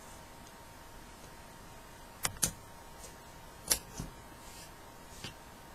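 Scissors snipping through loose yarn strands that have been crocheted in: a pair of sharp clicks about two seconds in, another pair near four seconds, and a faint one near the end.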